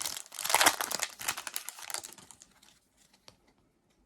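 A trading-card pack's foil wrapper crinkling and tearing as it is ripped open, busiest for the first two seconds and then dying away to a couple of faint ticks.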